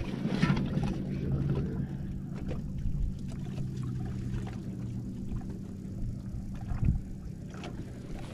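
A small electric motor on a bass boat humming steadily, switching on at the start, with a few light knocks over it.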